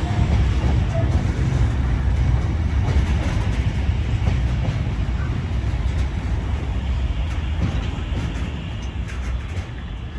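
Freight train hauled by a Class 66 diesel locomotive rolling slowly into the station. Its wagons make a heavy low rumble on the rails, which fades over the last couple of seconds as the train slows to a stop.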